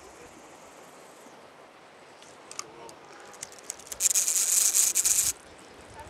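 Spinning reel on a long surf-casting rod being worked by hand: a few light clicks, then a loud, dense rattling run of about a second and a half starting about four seconds in, which stops abruptly.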